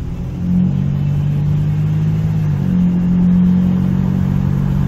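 Car engine and road noise heard from inside the moving car: a steady low hum over tyre rumble, shifting in pitch about halfway through.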